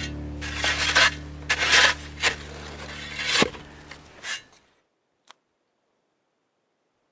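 Shovel blade scraping and crunching into packed snow, several strokes in the first four seconds over a steady low hum, then near silence.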